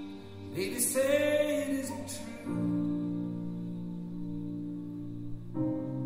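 Background music of slow, long-held chords that change about two and a half seconds in and again near the end, with a louder, brighter swell in the first two seconds.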